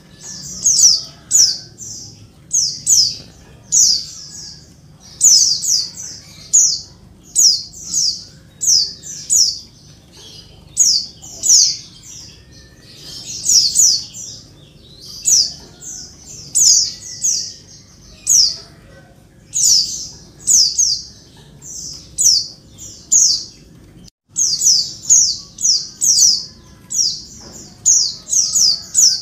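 Female white-eye (pleci) calling loudly: short bursts of two to five high, rapid chirps, repeated about once a second.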